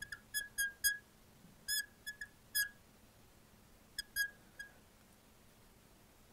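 Marker tip squeaking on a glass lightboard while writing: about a dozen short, high squeaks in quick clusters, each stroke of the letters giving one.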